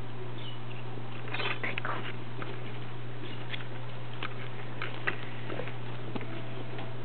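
Young Bullshih puppies playing and tugging at a strap on a wooden floor: scattered light clicks, taps and scuffles, busiest a second or two in, over a steady low hum.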